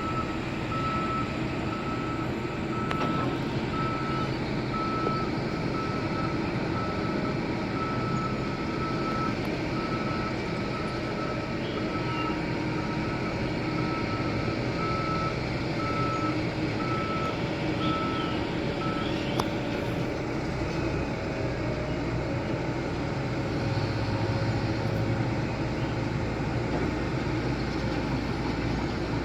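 Heavy construction machine's engine running steadily, with a reversing alarm beeping about once a second; the beeping stops about two-thirds of the way through while the engine keeps running.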